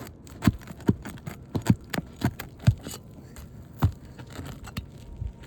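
About ten sharp, irregular knocks and taps as tools work against an old asphalt-shingle roof while staples are pried out to free a damaged shingle.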